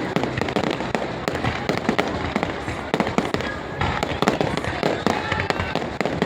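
Fireworks display: a dense, continuous run of bangs and crackling reports, many overlapping.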